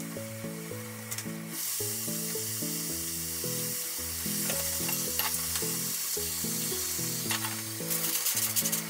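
Sliced bell pepper and shiitake sizzling in a small frying pan; the sizzle grows louder about a second and a half in as seasoning liquid goes into the hot pan. Near the end, aluminium foil crinkles.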